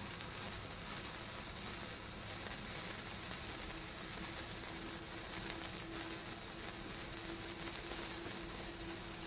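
Brothers Pyrotechnics large golden sparkler burning with a continuous, even fizzing hiss.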